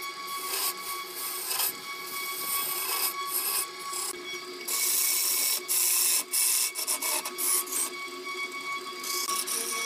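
Wood lathe spinning a wooden block while a hand-held tool is pressed against it, giving a hissing scrape in repeated strokes over the machine's steady whine.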